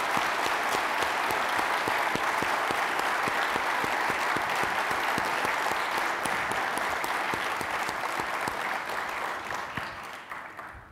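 Audience applauding steadily, dense clapping from many hands that dies away near the end.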